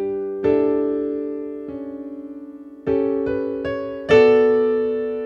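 Slow solo piano music: single notes and chords struck a second or more apart, each left to ring and fade, with the loudest chord about four seconds in.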